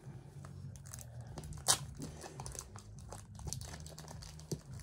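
Foil wrapper of a Pokémon booster pack crinkling as it is torn open by hand, with one sharp crackle about a second and a half in.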